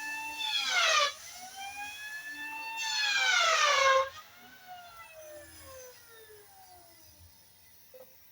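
Handheld electric planer whining. Its pitch drops sharply twice as it bites into the timber, then after about four seconds it is released and slowly spins down.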